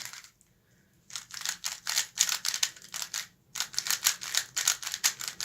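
MGC 3x3x3 V2 magnetic speedcube being turned quickly by hand: fast runs of sharp plastic clicks and clacks as the layers snap round, in two bursts with a short pause between. The cube is a little loose, its magnets fairly weak.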